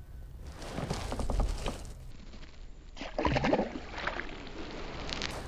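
A small largemouth bass is thrown back into the lake with a splash about three seconds in. Before it there are knocks and rustling from the fish being handled.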